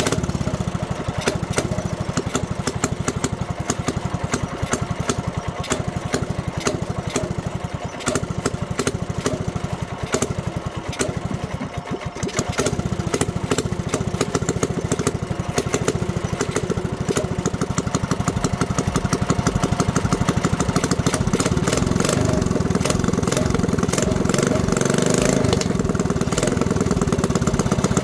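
Mini bike engine running through a straight-pipe header on its newly fitted aftermarket Mikuni carburetor, on a test run after being pull-started. It sags briefly about twelve seconds in, then picks up and runs faster and louder through the second half.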